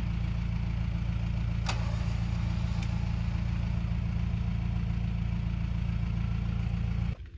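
Mahindra Roxor's four-cylinder turbo-diesel engine idling steadily, a low even hum.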